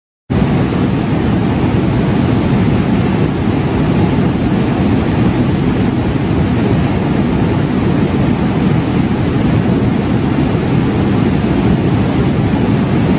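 Steady, loud rush of a fast whitewater river pouring through rapids between boulders.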